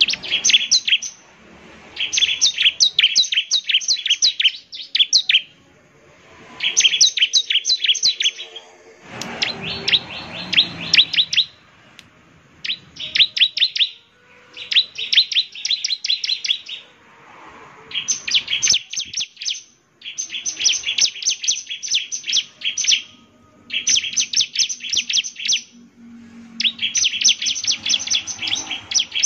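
Bar-winged prinia (ciblek) singing: about ten rapid bursts of high, fast-repeated chirps, each lasting one to three seconds with short pauses between. A brief rushing noise sits under one burst about nine seconds in.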